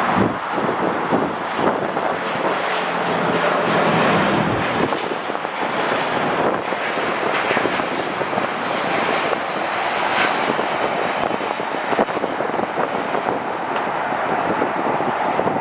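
Airbus A350-900 jet airliner taking off, its Rolls-Royce Trent XWB turbofan engines at takeoff thrust giving a steady, loud jet rush.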